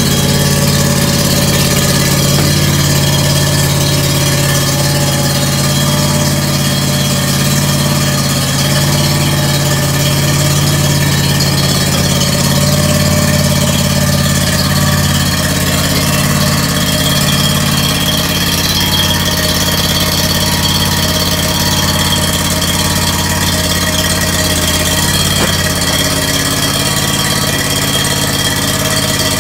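Wright stand-on mower's Kawasaki engine running steadily at close range while the mower is driven slowly forward into the trailer lock. The steady engine tone shifts slightly about halfway through, where a thin high whine gets stronger.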